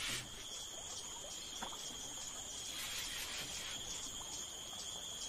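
A steady, high-pitched insect trill, even in level, with a fast, regular pulsing in its upper part.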